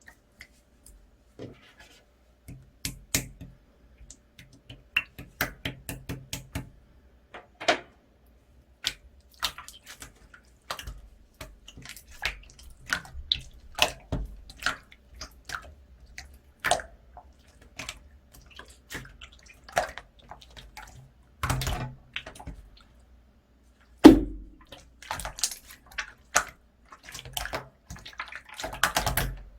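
Slime being mixed by hand: a steady run of irregular wet clicks, pops and squelches as it is stretched, folded and pressed, with one louder thump about three-quarters of the way through.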